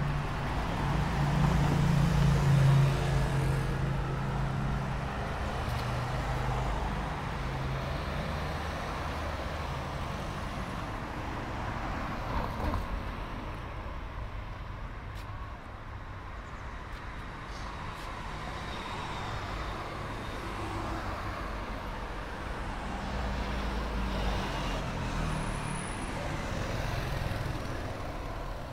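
City street traffic: cars driving past with a low engine and tyre rumble, loudest in the first few seconds and again near the end.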